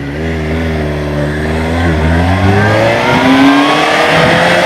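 Suzuki GSR 750's inline-four engine through a new aftermarket exhaust, accelerating on the road. The engine note holds steady for about two seconds, then rises in pitch as the bike speeds up.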